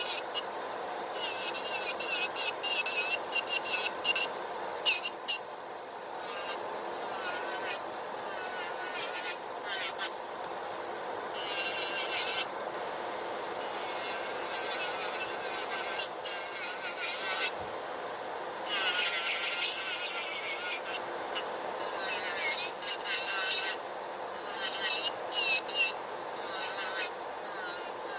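Electric nail drill with a sanding-band bit filing down artificial nails in short passes. A high rasping hiss comes and goes over the drill motor's whine, whose pitch wavers as the bit presses on the nail. Underneath runs the steady fan noise of a nail dust collector.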